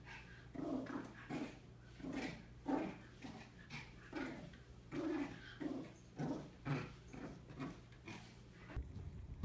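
Two cats growling in a play-fight while wrestling, a run of short growling calls at about two a second.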